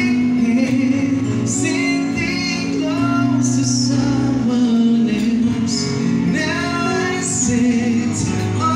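Live band playing a song, with a singer on lead vocals over the amplified backing.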